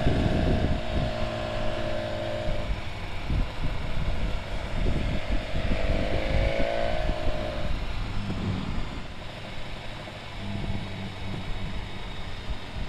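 Motorcycle engine running under way, with heavy wind buffeting on the microphone. The engine note holds steady, drops away about two and a half seconds in, then climbs again around five seconds before easing off near eight seconds.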